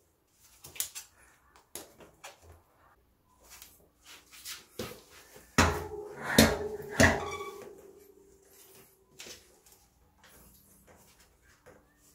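Plastic tyre levers clicking and scraping against a bicycle rim as the tyre bead is pried and pulled off. Small scattered clicks throughout, with a cluster of louder knocks about six to seven seconds in, followed by a short ring.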